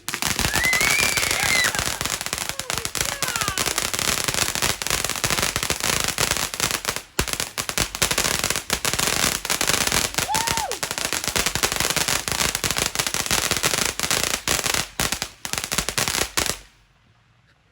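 Consumer fireworks crackling: a dense, unbroken barrage of rapid sharp pops that stops suddenly about a second before the end.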